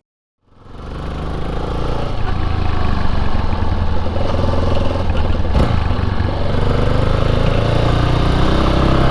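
Yamaha Serow 250's single-cylinder engine running, fading in about half a second in and then holding steady with small shifts in pitch. A sharp knock sounds once just past halfway.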